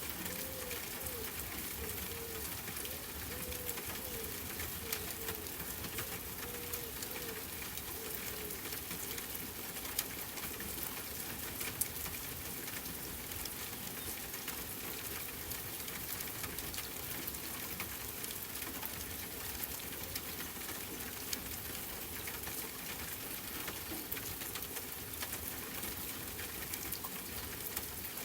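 Steady rain pattering, a dense even hiss of drops. During the first eight seconds or so a dove coos, a string of short, low, arched calls that then stop.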